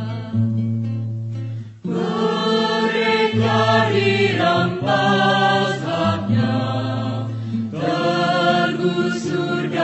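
A slow, solemn Indonesian song with sung voices over a held low drone. It is music rather than live crowd sound, with a short dip about two seconds in before the singing swells again.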